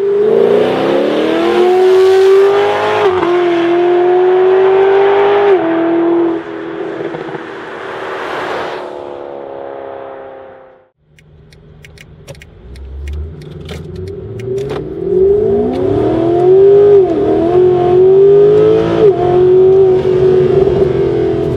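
Mercedes SLS AMG's V8 through a Supersprint full exhaust (headers, metallic sports cats, X-pipe) accelerating hard from the roadside, revs climbing through two upshifts and then fading as the car pulls away. From about 11 seconds in, the same engine is heard from inside the cabin on another full-throttle run, revs rising through two more quick upshifts.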